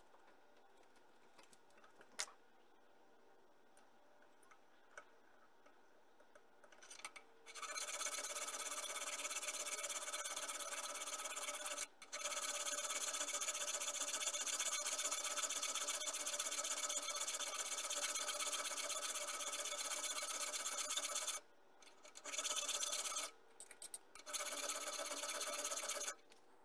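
Hand file scraping steadily across a small metal crankshaft piece held in a vise. It starts about seven seconds in and runs long with one brief break, then comes in two shorter runs near the end.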